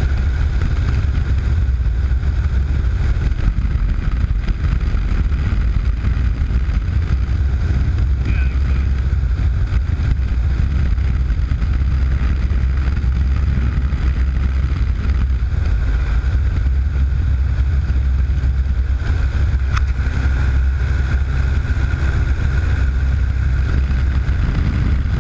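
Piston engine and propeller of a high-wing light airplane droning steadily in flight, heard from inside the cockpit.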